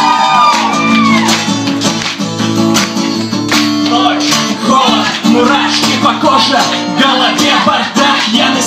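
Music: an acoustic guitar strummed in a steady rhythm, playing the intro of a live pop song.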